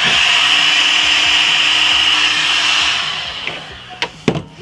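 Handheld ECD electric heat gun blowing hot air onto the aluminium shock eye: a steady rush of fan and air with a faint hum, running about three seconds and then winding down. Two sharp knocks come about four seconds in.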